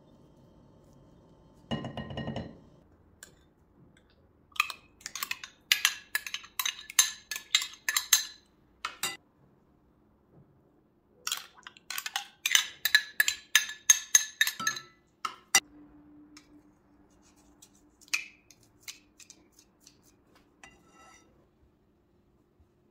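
Metal spoon stirring yogurt in a ceramic bowl, clinking rapidly against the bowl in two runs of several seconds each. A soft thud comes about two seconds in, and a few light taps come near the end.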